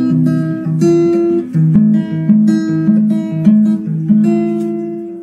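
Acoustic guitar music, picked notes and chords in a steady repeating pattern, fading out near the end.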